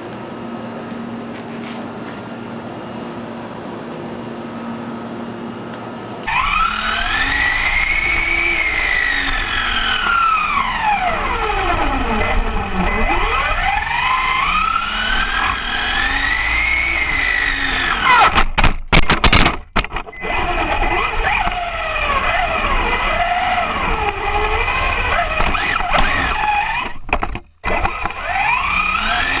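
Electric radio-controlled car running on asphalt, heard from a camera mounted on its roof: after a few seconds of steady background noise, its motor and gears start whining, the pitch rising and falling as it speeds up and slows down, over tyre noise. A few loud knocks come about two-thirds of the way through.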